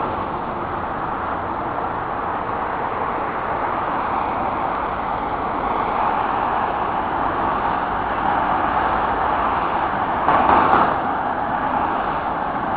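Steady traffic noise from a busy multi-lane motorway, cars and vans passing below, with a brief louder swell as one vehicle goes by near the end.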